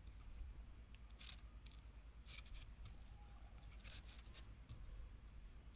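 Near silence: a faint, steady high-pitched whine, with a few soft clicks as a rough stone is turned in the fingers.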